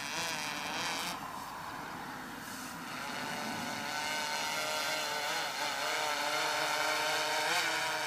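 DJI Inspire 2 quadcopter's propellers and motors whining overhead with a steady buzz. The pitch wavers up and down a few times as the motors change speed.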